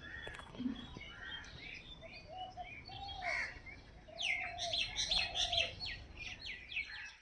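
Birds chirping, several calls overlapping. About four seconds in, a quick run of short downward-sweeping calls repeats at about four a second.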